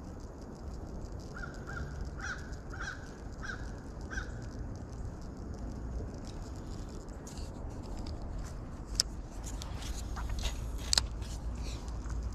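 A bird calling about six times in quick succession, followed a few seconds later by a scatter of sharp clicks and ticks, the loudest two about nine and eleven seconds in.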